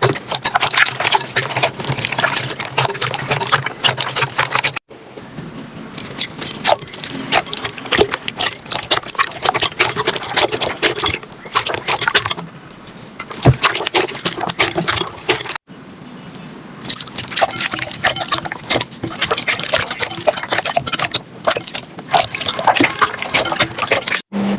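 Hands squeezing and poking slime: dense, irregular wet crackling and popping clicks. It comes in several stretches, broken by brief gaps about five seconds in and again near sixteen seconds.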